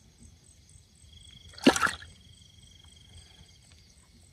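A single brief splash in water about a second and a half in.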